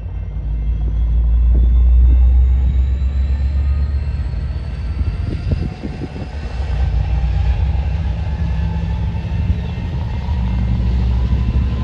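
Amtrak passenger train moving past, pushed by an EMD F59PHI diesel locomotive: a loud, steady low rumble with a thin high whine that slowly rises in pitch, and a few sharp knocks about halfway through.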